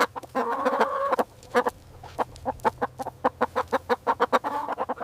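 Chicken clucking: a fast run of short clucks, with one longer drawn-out call about half a second in. It cuts off abruptly at the end.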